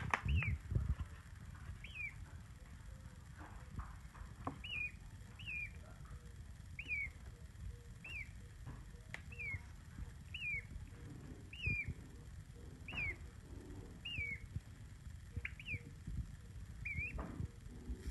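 Peachick peeping: a string of short, high peeps, each sliding downward, about one a second, with a few soft knocks in between.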